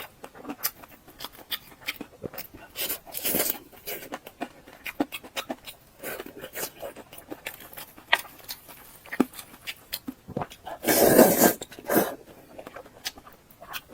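Close-up eating and mouth sounds: a string of small wet clicks and smacks from chewing, with one longer, louder noisy sound about eleven seconds in.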